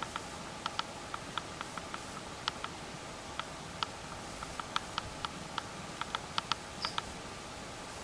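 Irregular sharp ticks, two or three a second, over a steady hiss.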